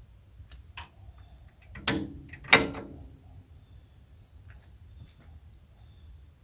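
Two loud metallic clanks about half a second apart, each ringing briefly, after a lighter click. A faint high chirp repeats about twice a second behind them.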